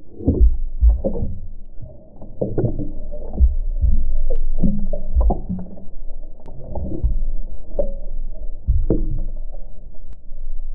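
Muffled water sloshing and gurgling heard by a camera held under the water, with irregular low swishes and thumps as a hand moves the water about. Nearly all the sound is dull and low, with the higher sounds cut off.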